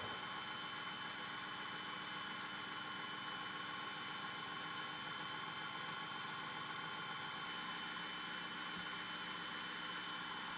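Food processor motor running steadily on low speed, whirring with a high whine as it blends garlic, egg white and lemon juice into an oil emulsion. A single light knock at the very start.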